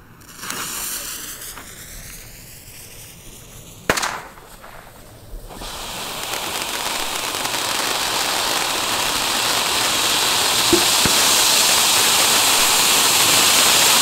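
Ground fountain firework (a "volcano") hissing as it sprays sparks: a thin hiss at first, then from about five seconds in a dense, loud hiss that builds and holds. A single sharp crack comes near four seconds.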